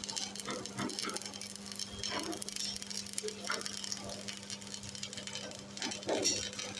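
Electric arc welding crackling and sizzling unevenly, over a steady low electrical hum.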